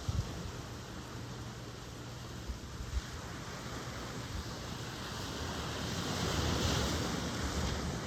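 Ocean surf: a steady wash of waves, with one wave swelling up about two-thirds of the way through and then easing off. A few low bumps of wind on the microphone in the first few seconds.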